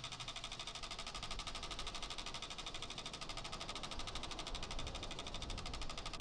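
Rapid, even mechanical clatter of about a dozen clicks a second, like a small machine running, which plays while scrambled text decodes.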